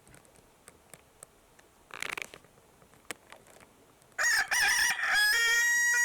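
Rooster crowing once, starting about four seconds in: a loud call of about two seconds that wavers, breaks briefly, then holds a steady high note. Before it come a short rustle about two seconds in and a few faint clicks.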